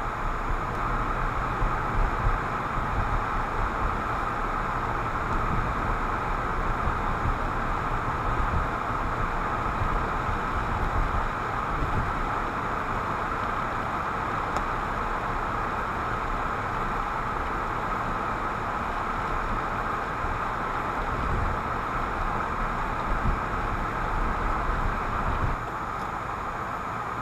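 Steady cabin noise of a car driving on snowy roads: tyre and engine rumble with a constant hiss, as picked up by a dashboard camera on the windshield. It eases off slightly near the end.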